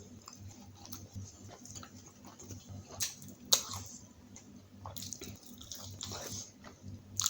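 A person chewing food close to the microphone, with soft wet mouth clicks and smacks, the sharpest about three seconds in and again near the end.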